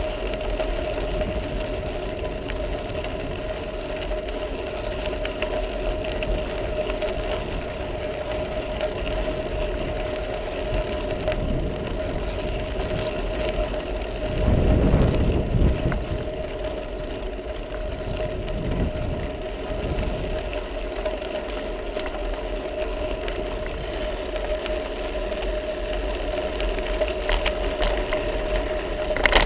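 Bicycle rolling along a gravel path, heard through a bike-mounted action camera: a steady hum with tyre noise and low wind rumble. About halfway through, a louder rush of wind rumble swells for a second or two.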